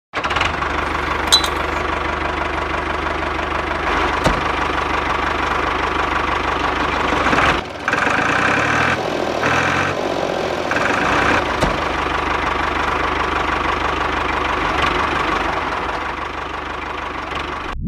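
Steady low, engine-like running of a toy tractor towing a mini drilling rig. The sound dips briefly about halfway through, and a higher tone switches on and off three times just after.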